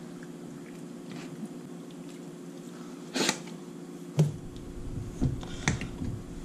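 Steady low hum under soft hand sounds on raw chicken in a glass dish. In the second half come several sharp knocks and clicks as a plastic seasoning shaker is grabbed and its flip-top cap handled.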